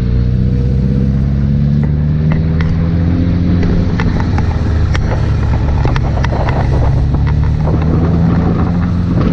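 Sport motorcycle engine running while riding along at steady speed, its note rising gently over the first few seconds and then holding, with scattered light ticks over it.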